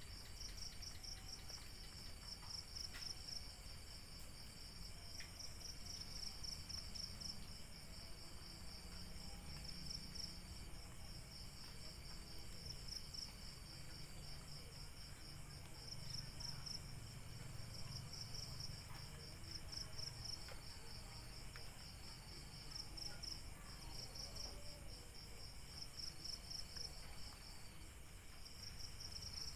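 Night insects, cricket-like, chirping in short pulsed trills, one after another every second or two, over a faint steady high whine.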